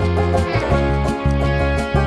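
Background music: upbeat plucked guitar and banjo with a steady bass line, country style.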